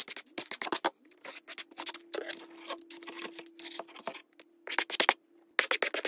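A small plastic muck fork scraping and scooping cut paper squares across the cardboard floor of a toy stable, in quick rustling strokes broken by a few short pauses.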